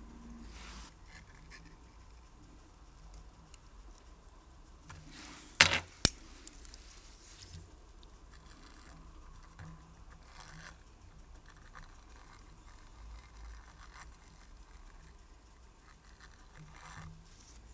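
Faint scraping and handling of small watchmaker's tools and parts, with two sharp metallic clicks about half a second apart, about six seconds in.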